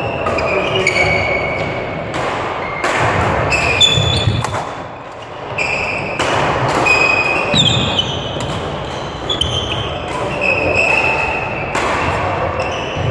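Badminton play in a large, echoing hall: sharp racket strikes on the shuttlecock and thudding footwork, with many short high squeaks of shoes on the court floor.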